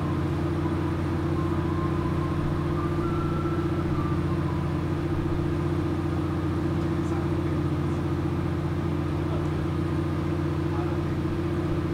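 An engine running steadily at idle: a constant low hum made of a few fixed droning tones, with no change in speed.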